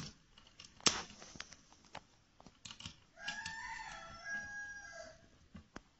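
Sharp clicks and taps of the stereo's sheet-metal chassis and screws being handled, the loudest about a second in. A rooster crows once, for about two seconds, in the middle of it.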